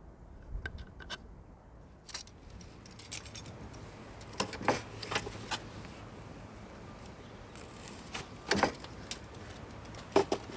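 Scattered clicks, knocks and light clatter from handling tools and materials, with a few louder knocks about halfway through and again later on.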